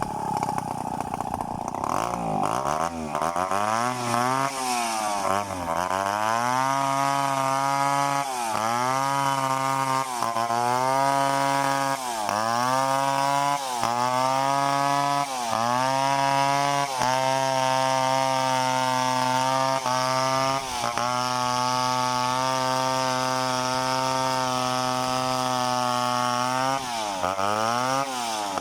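Two-stroke chainsaw cutting into a coconut palm trunk at high revs. Its pitch sags and recovers every second or two as the chain bites, then holds steady for several seconds before dipping again near the end.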